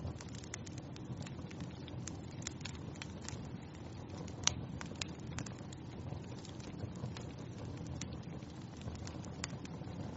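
Wood fire crackling in a fireplace: a steady low rush of burning with frequent sharp pops and snaps, the loudest about four and a half seconds in.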